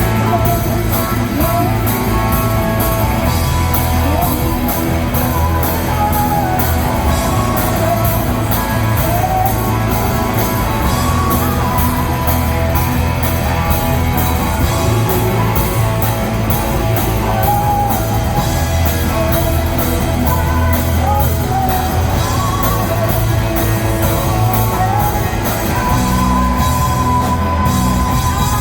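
Rock band playing loudly, with electric guitar, bass and drums and a voice singing over them.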